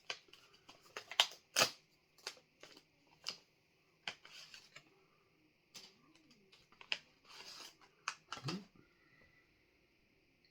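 Plastic wrapper of a freeze-dried ice cream sandwich bar being torn open and handled: a quick run of sharp crinkles and clicks that thin out into occasional rustles in the second half.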